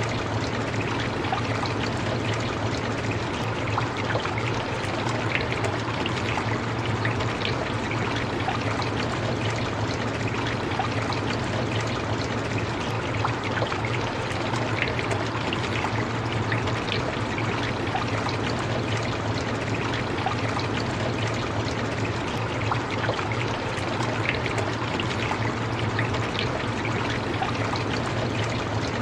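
Steady rain: a continuous wash of falling water with many small drop ticks scattered through it, over a steady low hum.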